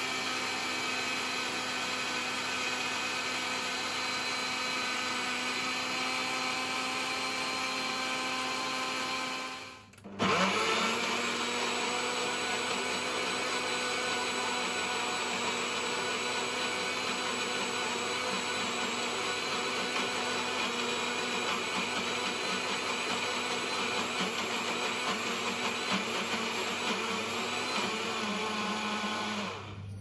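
Kenwood countertop blender with a glass jug running steadily, chopping spinach, walnuts and oil into pesto. It stops for a moment about ten seconds in, starts again abruptly, and stops near the end.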